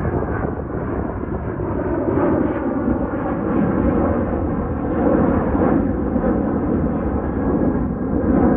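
Boeing 737-800's two CFM56-7B turbofan engines at takeoff thrust as the jet climbs out: a loud, steady, deep rumble.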